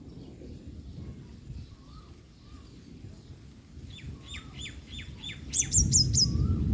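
Yellow-bellied sunbird calling: a quick run of falling chirps in the second half, ending in four sharp, high notes that sweep downward. A low rumble of noise swells near the end.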